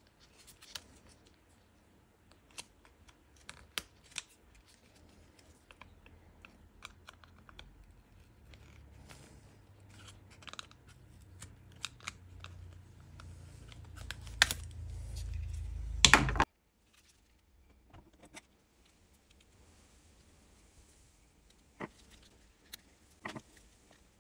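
Small plastic clicks and snaps as a metal pick works at the lever pivots of a car's fresh-air flap linkage and its plastic housing. A low rumble builds under the clicks and cuts off suddenly just after two loud snaps about two-thirds of the way through.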